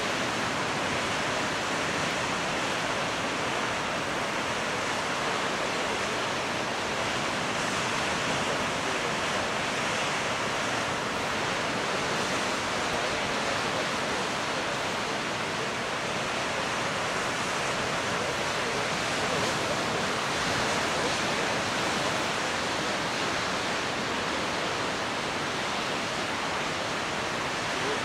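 Steady, even rushing of ocean surf breaking on a rocky shore.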